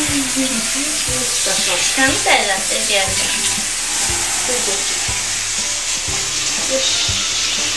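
Handheld shower spraying water over a small dog in a bathtub: a steady hiss of spray.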